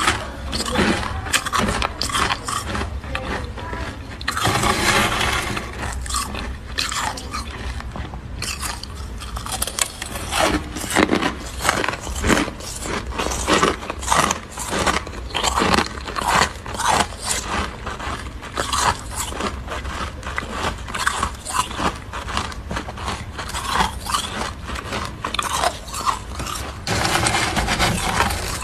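Freezer frost crunched in rapid, irregular bites and chews, heard close up, with a metal spoon scraping through the frost in a couple of longer stretches, one about four seconds in and one near the end.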